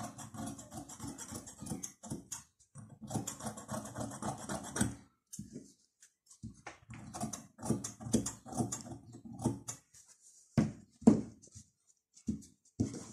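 Large fabric shears cutting through cotton fabric on a cloth-covered table, long rough crunching cuts with the blades scraping along the tabletop, then a few sharp knocks near the end.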